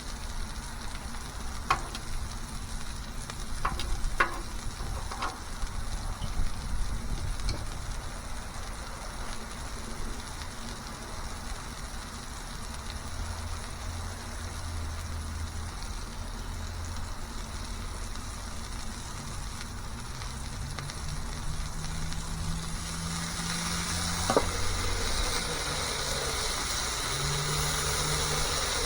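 Smashburger cooking on a griddle, sizzling steadily, with a few sharp clicks in the first five seconds. The sizzle grows louder and brighter over the last several seconds.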